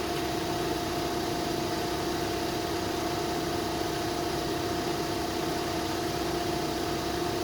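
Steady machine hum at a constant pitch, like an idling engine, with no change through the stretch.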